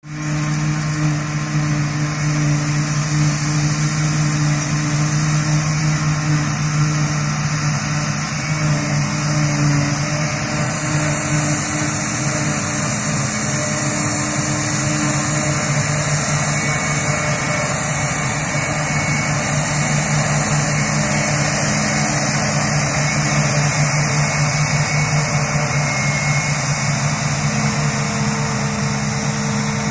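Self-propelled forage harvester chopping grass silage, with tractors running alongside: a steady engine drone with a hissing rush over it.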